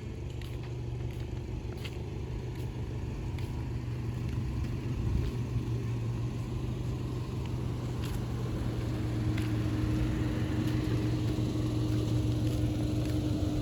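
Steady low hum of a running motor vehicle, growing slowly louder, with a higher steady tone joining about two-thirds of the way through.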